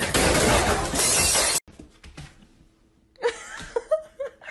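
A loud crashing, shattering noise for about a second and a half that cuts off abruptly, followed by faint, brief sounds near the end.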